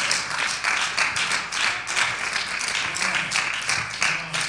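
Congregation applauding: a dense, steady run of hand claps.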